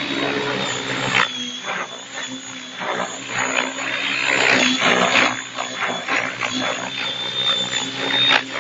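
Radio-controlled HK Assault 700 helicopter in flight: a steady high whine under a rush of rotor noise that swells and fades every second or so.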